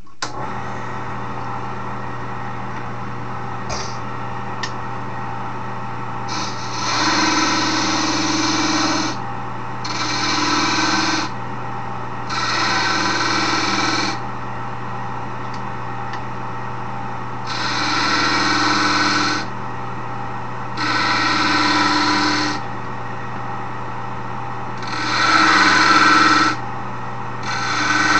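Wood lathe running with a steady motor hum while a hand tool cuts into the spinning wooden handle in about seven bouts of a second or two each, cutting grooves.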